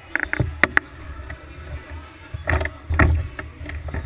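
Scattered sharp knocks and clicks on a stationary kart's chassis, picked up through the onboard camera's mount, with a cluster of louder knocks past the middle over a low rumble; no engine is running.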